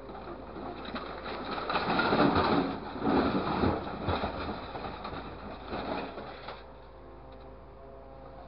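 Hydraulic grapple of a truck-mounted crane biting into a pile of crushed scrap metal: clattering and scraping of the metal for about five seconds, loudest in the middle. After that only the steady hum of the truck's running engine and hydraulics remains as the loaded grapple is raised.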